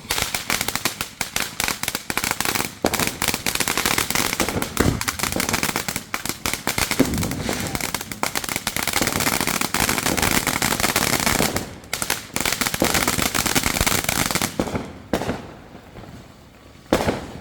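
A firework giving off a dense, rapid crackle of pops that starts at once and keeps going for about fourteen seconds, then dies away, with a few sharper single cracks near the end.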